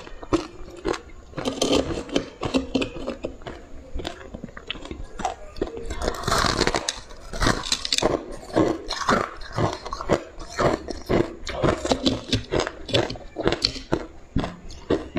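Close-miked crunching and chewing of frozen ice blocks with a purple frosted crust: rapid sharp crunches, several a second, with a denser crackling stretch about six seconds in as a big bite breaks off.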